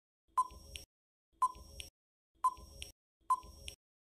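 Countdown-timer tick-tock sound effect: four ticks about a second apart, each a sharp tick with a short beep-like ring followed by a softer click.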